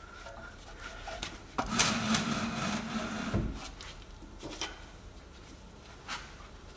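Hand tools working on a seized suspension nut and stud: scattered metallic clicks and knocks, with a scraping, grinding stretch in the middle that stops suddenly.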